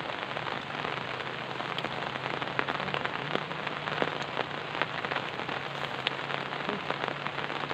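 Steady rain falling, a dense even hiss dotted with many small ticks of individual drops.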